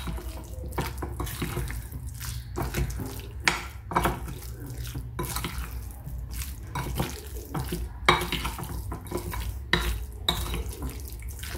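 Chicken pieces being mixed by hand with a wet masala marinade in a bowl: irregular squelching and sloshing with the odd knock of the bowl.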